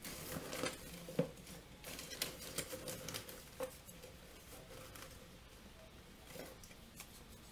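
Small paper slips rustling and clicking as a hand rummages through them in a box, busy for the first few seconds and then thinning to occasional faint ticks.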